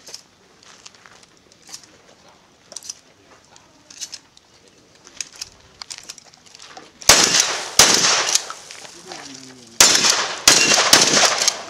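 A pump-action shotgun fired about five times, the first two shots close together about seven seconds in and the rest over the following few seconds. Before the shooting there are only quiet scattered clicks and knocks.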